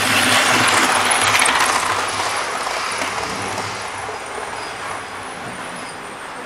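OO gauge model train running past close by. Its running noise is loudest in the first two seconds, then fades steadily as it moves away.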